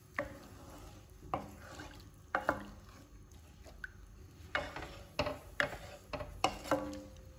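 A spatula stirring a watery egg-and-vegetable mixture in a kadhai, with irregular clacks and scrapes of the spatula against the pan.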